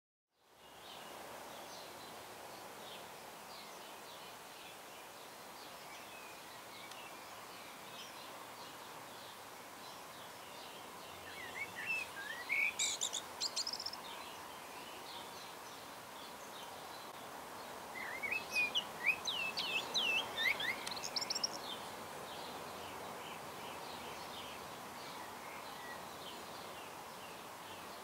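Garden birds chirping and singing over a steady outdoor background noise, with louder spells of quick rising and falling chirps about twelve seconds in and again around twenty seconds in.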